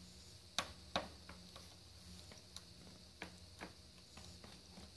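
Faint, irregular plastic clicks and taps as a taped-together front-panel connector is worked onto a motherboard header, the two sharpest about half a second and a second in, over a low steady hum.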